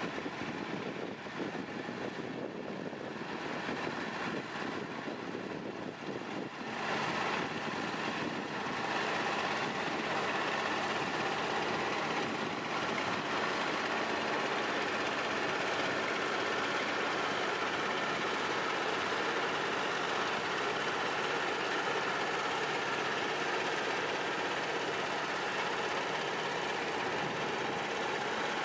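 Ride-on thermoplastic road marking machine running steadily as it lays a line, its engine giving a steady mechanical noise. The sound grows louder about seven seconds in and then holds level.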